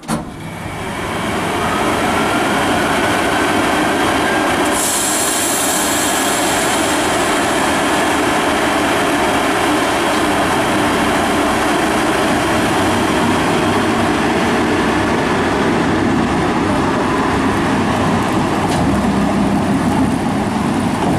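Cooling fans of a 1948 Swedish class Hg electric locomotive starting up and running loudly and steadily, coming up to full noise within about two seconds. A high hiss joins about five seconds in.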